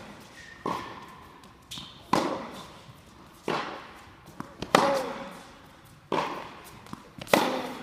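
Tennis ball being hit back and forth with racquets in a rally on an indoor court: sharp hits about every second and a half, with fainter bounces between them, each echoing in the hall.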